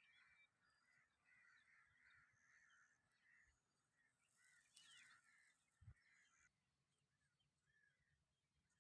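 Near silence with faint chirping of distant birds, repeated short calls that cut off abruptly about six and a half seconds in.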